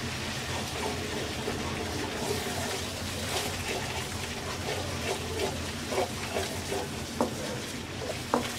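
Onion paste with ginger-garlic paste frying and bubbling in oil in a non-stick kadai, being fried down to cook off its raw smell. A wooden spatula stirs it, scraping and knocking against the pan in frequent short clicks.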